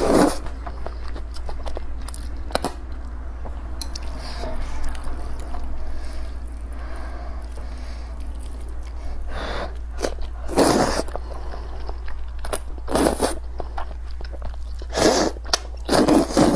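Close-up eating sounds: sweet potato vermicelli being chewed, with several short, louder mouth noises scattered through, most of them in the second half.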